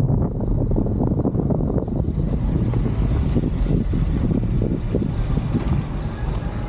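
Steady, choppy low rumble of a vehicle on the move, with wind buffeting the microphone.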